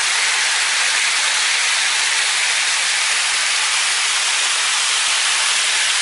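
Rushing water of a small stream cascading over rocks: a steady, even hiss, mostly high-pitched with little low rumble.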